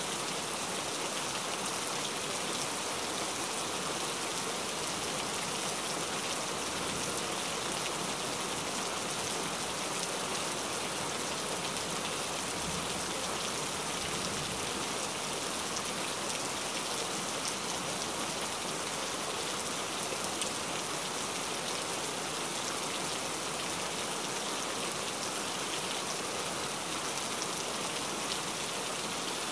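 Steady rain falling: an even, unbroken hiss that does not let up.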